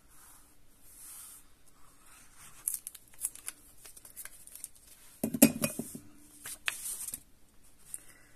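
Paper and cardstock being handled while designer paper is glued into a folded card: faint rustling with a few light taps, and a louder burst of rustling and knocks against the table about five seconds in.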